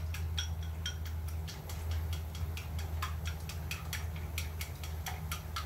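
Green peppers stir-frying with miso in a frying pan: a run of quick, irregular clicks and ticks, several a second, over a steady low hum.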